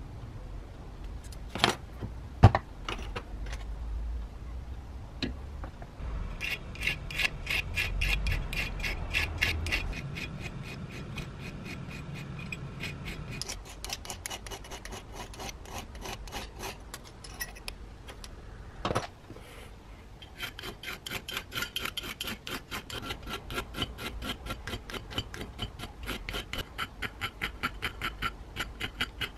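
A thin hand file being drawn back and forth over the edge of a rusty steel blade-holder plate from a Makita 1901 planer, clamped in a steel bench vise. It rasps at a steady rhythm of about three strokes a second. There are a couple of sharp knocks about two seconds in and another knock just before the last run of strokes.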